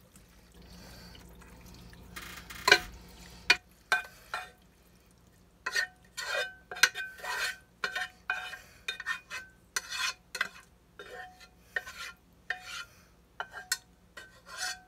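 A kitchen utensil scraping and knocking against the inside of a saucepan to empty a thick noodle mixture out of it, the pan ringing briefly at some strokes. A sharp knock comes near the three-second mark, and quick scrapes follow in a steady run from about halfway through.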